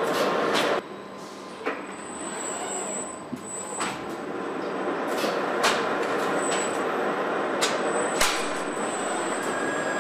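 Car assembly plant noise: a steady rush of machinery with sharp clicks and clanks scattered throughout and a faint high whine. The level drops suddenly about a second in, then builds back up.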